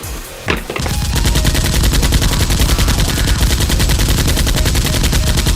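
Rapid automatic gunfire, a continuous burst of shots starting about a second in, laid over the Nerf blaster fight as a sound effect.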